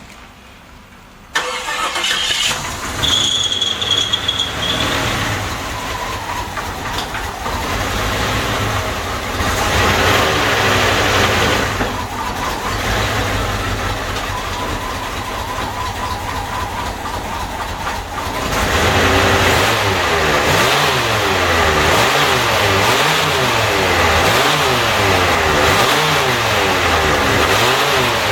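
Jeep Wagoneer's V8 engine running. It comes in abruptly about a second in, and from about two-thirds of the way through it gets louder and its speed rises and falls over and over, about once every second and a half. The engine is still running poorly while its vacuum leaks are being chased.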